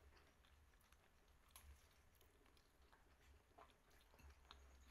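Near silence: faint, scattered small clicks of a toddler handling food and chewing, over a low steady hum.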